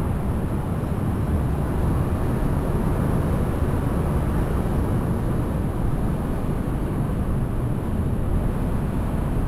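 Steady low rumble of city street noise heard from a moving bicycle: traffic and wind on the microphone, even in level throughout.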